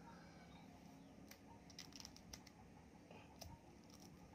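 Faint, scattered clicks of a cracked duck eggshell being picked open with the fingertips, over near silence.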